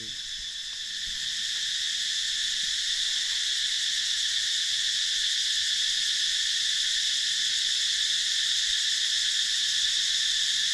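Chorus of cicadas: a dense, high-pitched drone that swells over the first couple of seconds, then holds steady.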